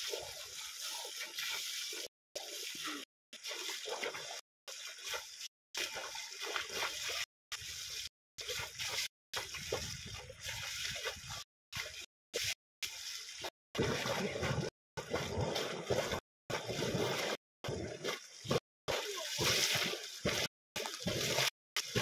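Stream water splashing and sloshing, over and over, as a man sweeps his arms through a pool. The sound cuts out completely for short moments many times.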